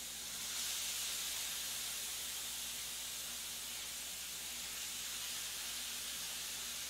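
Lamb chops searing on a hot grill, a steady sizzling hiss that swells slightly about half a second in.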